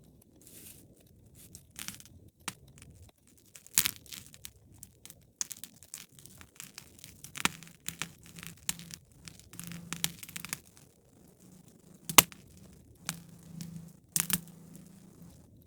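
Wood fire in a fireplace crackling, with irregular sharp pops over a soft steady burning; the loudest pop comes about twelve seconds in. A faint low hum sits under the second half.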